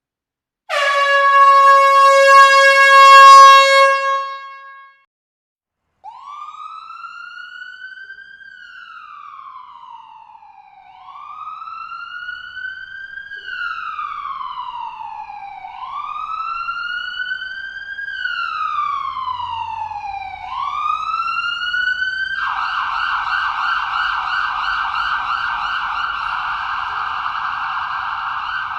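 A loud, steady horn-like blast lasting about four seconds, then a siren wailing, its pitch slowly rising and falling every four to five seconds, switching to a fast yelp for the last several seconds.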